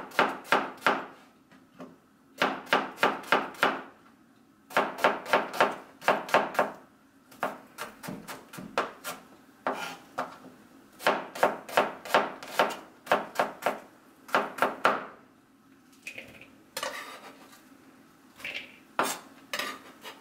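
Chef's knife chopping a red onion on a plastic cutting board: quick runs of sharp knife strikes, about five a second, with short pauses between runs. Near the end the strikes become sparse, scattered knocks.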